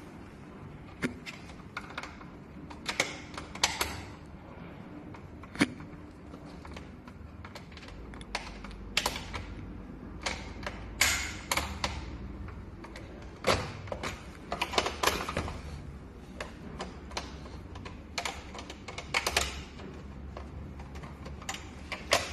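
Irregular sharp clicks and knocks from taking off a treadmill's motor cover.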